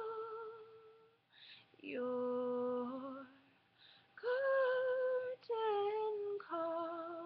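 A woman singing unaccompanied, holding several long notes with short pauses for breath between them; the last notes step down in pitch.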